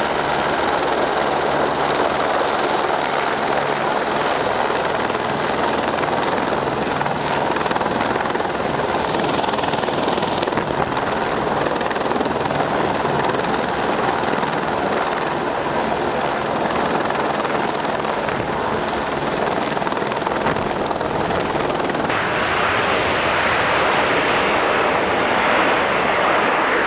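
Steady aircraft engine noise, continuous and loud, which becomes brighter and harsher about 22 seconds in.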